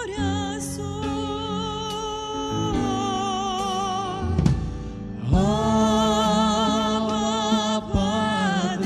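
Christian worship song: a voice singing long held notes with vibrato over instrumental backing, breaking off briefly about halfway before the next phrase.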